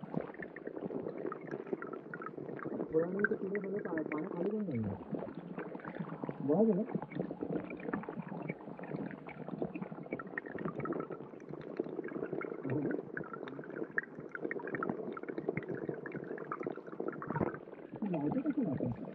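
Stream water trickling and gurgling, heard underwater through a GoPro: a steady muffled bubbling full of short, wavering pitched warbles.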